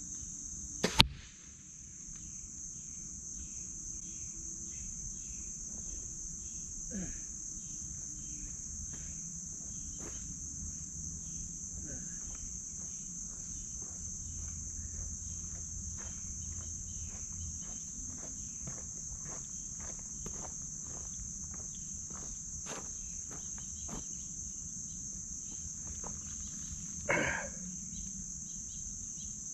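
Steady high-pitched insect chorus of crickets or katydids, with faint regular ticks under it. A single sharp crack comes about a second in, and a brief louder noise shortly before the end.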